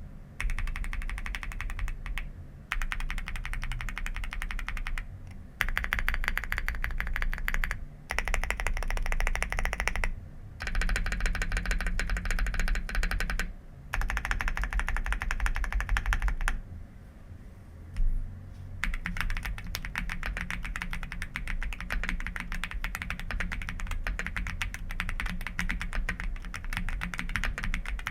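Fast typing on a Chilkey PAW65 mechanical keyboard: rapid keystroke clicks in runs of a few seconds with brief pauses between them, and one longer lull about two-thirds of the way through, ended by a single sharper key hit.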